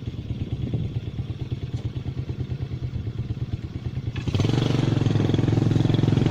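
A small engine running steadily with a rapid, even chug. It grows clearly louder about four seconds in, as if the throttle is opened or it comes closer.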